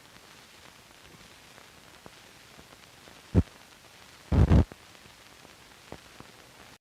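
Hiss of an old film print's soundtrack after the narration, with faint scattered clicks, one sharp pop about three seconds in and a louder double pop about a second later, then the sound cuts off abruptly near the end.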